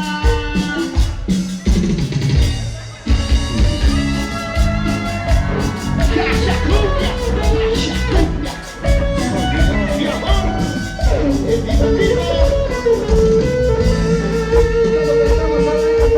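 A band playing an instrumental passage with drum kit and guitar over a steady beat, with a long held note near the end.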